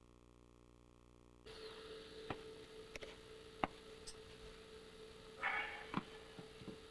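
Steady electrical hum over a blank stretch of tape; about one and a half seconds in it cuts abruptly to faint room sound with a steady hum, several sharp clicks and a short rustle near the end.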